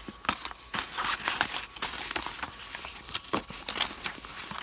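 Paper instruction sheet being unfolded and handled: rustling and crinkling with many small ticks and taps.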